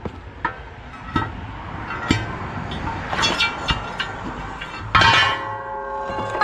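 Steel disc-harrow parts (discs, spacers and bearing pieces) clinking and knocking as they are slid together onto a gang bolt, a few light knocks, then a louder ringing clank of metal about five seconds in.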